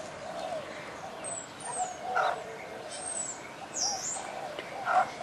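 Several birds calling from backyard aviaries: short, high thin whistles and chirps that slide in pitch, over a lower wavering call, with two brief louder calls about two and five seconds in.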